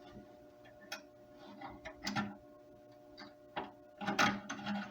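Light clicks and taps of metal as a thin saw blade is fitted back into the frame of a hand saw: a few scattered ones, then a quicker cluster near the end. A faint steady hum runs underneath.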